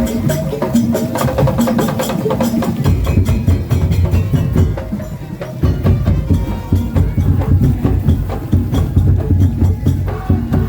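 Parade percussion music: fast wooden knocking and drums over held tones, played continuously, with a brief dip in loudness about halfway through.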